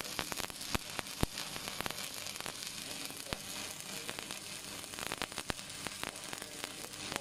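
Shielded metal arc (stick) welding on steel with an E6013 (RB-26) rod: the arc gives a steady crackling sizzle, broken by a few sharp pops.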